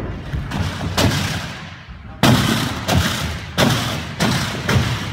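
A series of sharp thuds from a gymnast's hands and feet striking a sprung tumbling track during a tumbling pass, about seven contacts, the hardest coming from about two seconds in, each echoing in the large hall.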